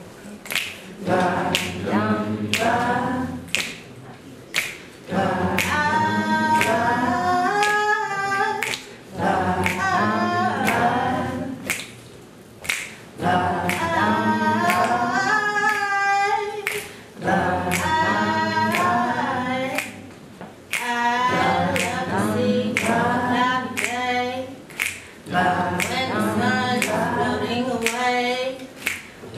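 A cappella singing: a woman's voice with a group of voices joining in, over finger snapping in a steady beat.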